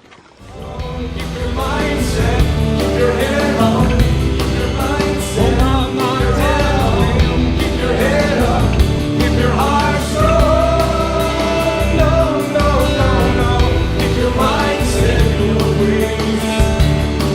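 Background music: a rock-style song with a sung vocal over a steady bass, fading in over the first second.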